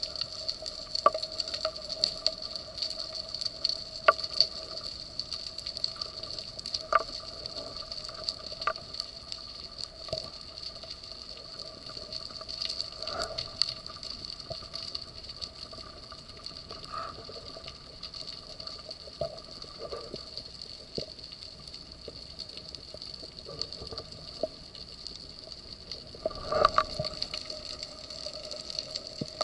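Underwater sound picked up by a camera on a speargun during a freedive: a steady hum with scattered sharp clicks and knocks, and a louder cluster of knocks near the end.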